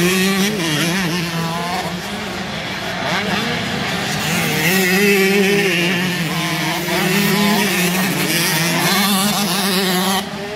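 Engines of 125 cc motocross bikes racing on a dirt track, their pitch rising and falling with the throttle, with one bike passing close about midway and others farther off.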